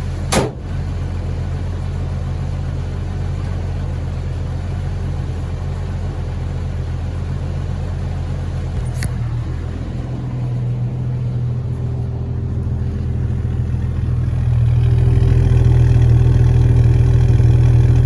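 Jeep Cherokee six-cylinder engine running steadily, growing a little louder in the last few seconds, with a single sharp click about half a second in. It runs without misses on all six cylinders after a fresh set of spark plugs.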